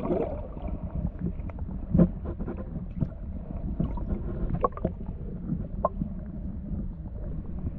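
Muffled underwater noise picked up by a submerged camera: a steady low rumble of moving water with scattered small clicks and knocks, the loudest knock about two seconds in.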